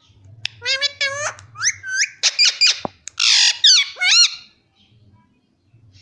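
Parakeets squawking: a rapid string of sharp calls that rise and fall in pitch, with one harsher, raspier squawk about three seconds in, lasting about four seconds in all.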